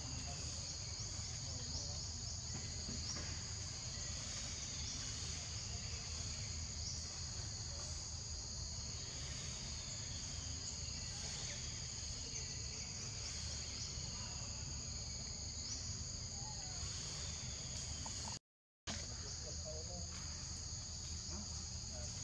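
Steady high-pitched chorus of insects, with a faint falling call repeating every second or two and a low rumble underneath. All sound drops out for about half a second near the end.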